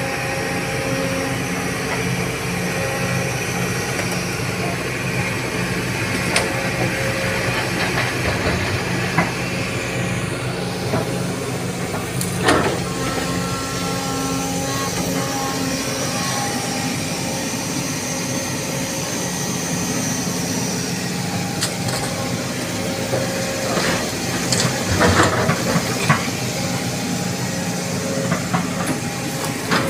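Sumitomo hydraulic excavator's diesel engine running steadily under load with a hiss, as it digs soil and swings it into a dump truck. A few sharp knocks stand out, one about twelve seconds in and a cluster a little past two-thirds of the way through, as soil and the bucket hit the truck's steel bed.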